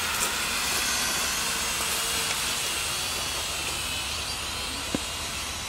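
Small quadcopter drone flying overhead: its propellers whine steadily over a hiss, the whole growing slightly fainter as it flies. A single short tap comes near the end.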